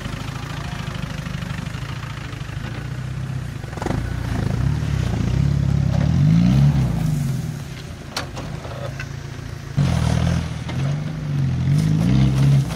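Land Rover Discovery engine pulling under load as it climbs a muddy, rutted track. The revs rise and fall twice, with a couple of sharp knocks in between.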